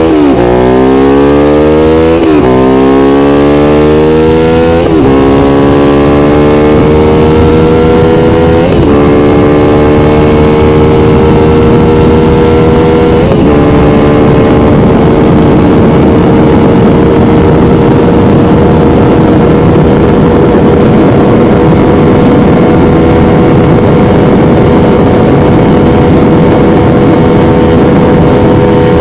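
Ducati Diavel's Testastretta L-twin engine under full-throttle acceleration. Its pitch climbs and drops at each of four quick upshifts in the first half, then holds high and nearly steady in sixth gear near top speed, with heavy wind rush.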